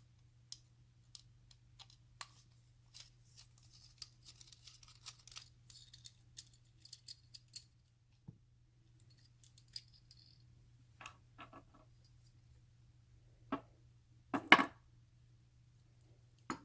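Hand shotshell reloading tool being handled as its stem is removed: scattered light clicks, taps and small scrapes of metal and plastic parts, with a couple of sharper knocks near the end, over a faint low hum.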